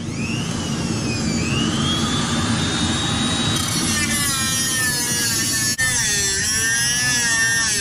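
Angle grinder with a cutoff wheel cutting through a metal exhaust pipe on a muffler. Its high whine sags and climbs in pitch as the wheel bites and eases, with a brief break about six seconds in.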